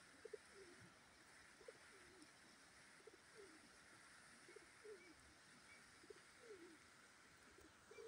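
Pigeons cooing: short, low, downward-gliding coos in pairs, repeating about every one and a half seconds. The coos are faint over a steady background hiss.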